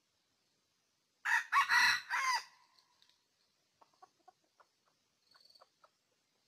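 Red junglefowl rooster crowing once, a short call of several notes lasting just over a second. A few faint short clucking notes follow.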